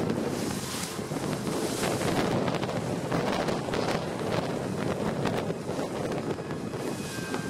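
Wind buffeting the microphone over the rush of water past a boat's hull as it runs through rough, choppy sea, with scattered sharp splashes.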